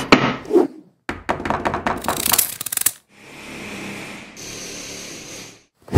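Intro sound effects: a quick run of sharp clicks and knocks, then a steady hiss for a couple of seconds, with a high thin tone joining in partway through.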